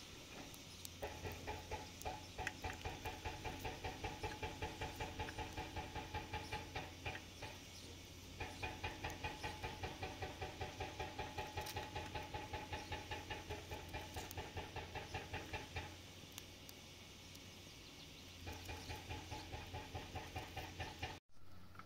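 Quick, even strokes of a blade through a vegetable held in the hand over a pan, about four a second. They come in three runs with pauses of a second or two between them.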